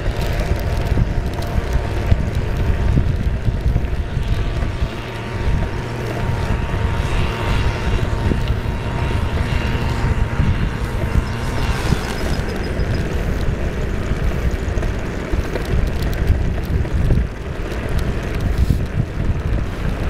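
Wind buffeting the microphone of a camera moving along a road, a steady low rumble with faint road and vehicle noise beneath it.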